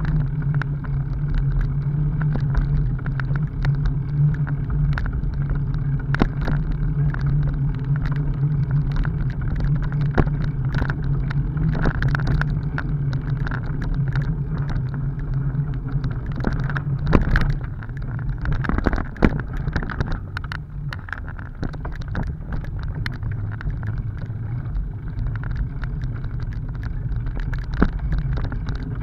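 Bicycle rolling over a rough dirt and gravel track: a steady low rumble from the tyres and the bike's vibration, with many small clicks and rattles over bumps, and a couple of louder knocks a little past the middle.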